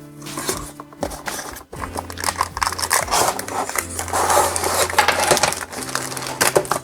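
Cardboard retail box and its packaging being opened by hand: continuous crinkling, rustling and crackling with many small clicks and scrapes.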